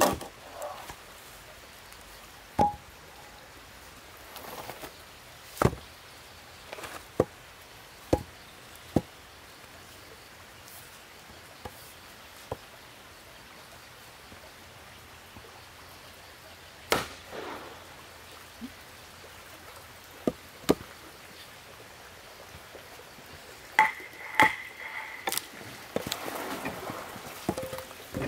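Axe chopping and splitting a short log section: sharp single blows into the wood at irregular intervals, about a dozen in all.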